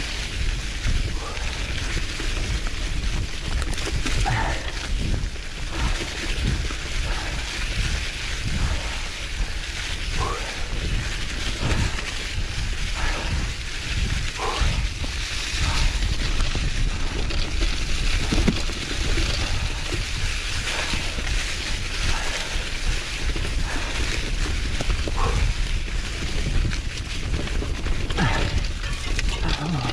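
Canyon Grizl gravel bike riding a forest trail covered in dry fallen leaves: the tyres rush and crackle through the leaf litter in a steady noise without let-up.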